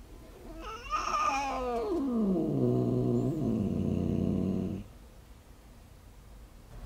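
Ginger tabby cat's long warning yowl that slides down in pitch into a low growl, lasting about four seconds and cutting off suddenly. It is an angry, defensive warning from a fearful cat at someone coming close.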